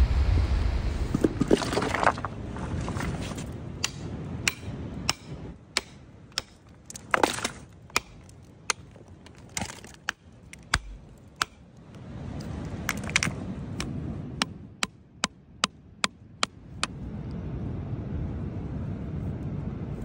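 Sharp, irregular taps of a hammer striking rock, roughly one or two a second, over a steady low rush of background noise.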